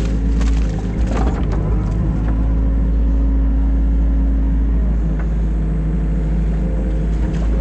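Diesel engine of a New Holland Kobelco E50.2 mini excavator running steadily, with a couple of short clatters about a second in and again near the end.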